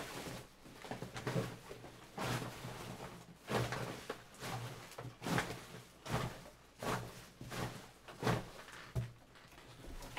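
Trash in an overflowing bin being handled and pressed down: a dozen or so rustling crunches, about one every second.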